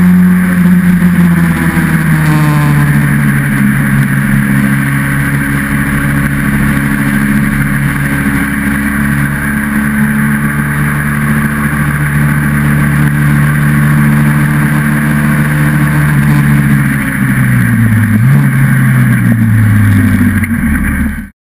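Austin Seven monopost racing car's four-cylinder engine running hard, heard from a camera mounted on the car. The engine note falls a second or two in, holds steady, then dips and climbs again near the end before cutting off suddenly.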